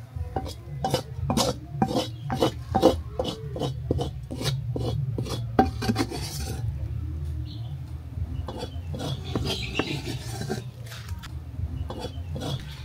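Wooden spatula scraping and knocking against the inside of an aluminium pot as food is scooped out: a quick series of strokes for about six seconds, then only a few scattered ones.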